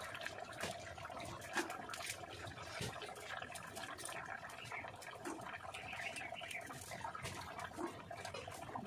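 Curry gravy simmering and bubbling in a kadai over a wood-fired clay stove, a steady bubbling hiss with scattered small clicks and pops.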